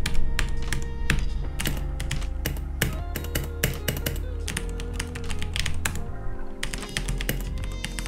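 Typing on a Corsair K63 mechanical keyboard with linear Cherry MX Red switches: rapid runs of key clicks, with a brief pause about six seconds in, over background music.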